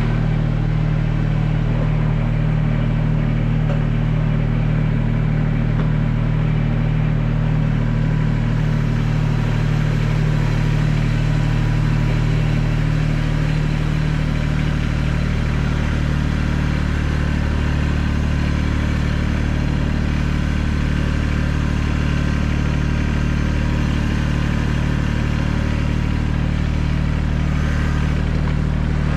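Kubota compact tractor's diesel engine running steadily at a constant speed.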